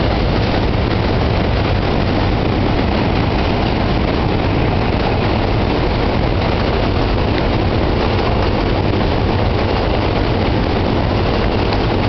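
New York City subway train passing at close range on the Manhattan Bridge tracks: a loud, steady rumble and rattle of wheels on rail that does not let up.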